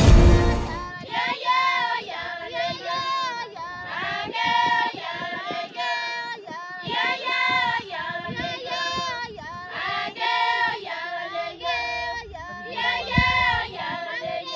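High voices singing a melody with a wavering pitch, in phrases of about a second each. A low boom sounds right at the start and a short low thud near the end.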